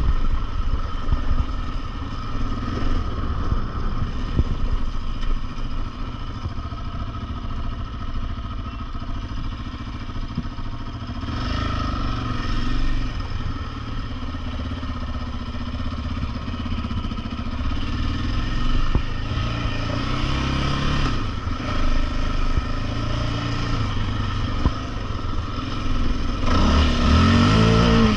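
Yamaha Raptor 700R SE quad's single-cylinder four-stroke engine running while being ridden, its pitch rising and falling with the throttle, with harder revving about eleven seconds in, around twenty seconds in, and near the end.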